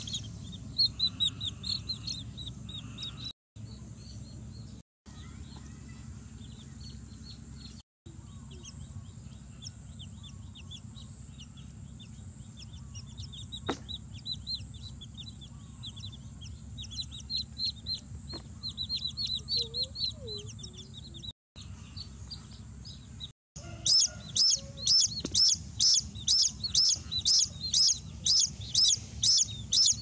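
Young chicks peeping in short, high, repeated chirps. From about three-quarters of the way through, the peeps get louder and come regularly, about three a second. A steady low rumble runs underneath.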